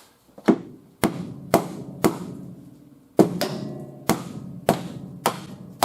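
Hammer blows on the sheet metal of a car's quarter panel, about two a second with a short pause partway through. Each blow rings briefly.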